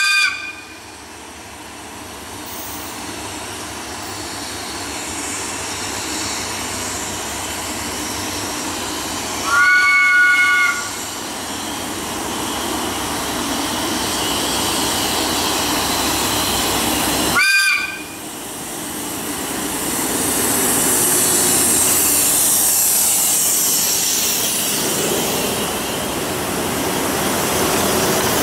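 Horn of an FSE BB-class diesel locomotive sounding three times as a chord of several tones: a short toot, a longer blast about ten seconds in, and another short toot near eighteen seconds in. Under the horn, the locomotives and their freight wagons approach and run past, and their engine and wheel noise grows steadily louder with a rising hiss near the end.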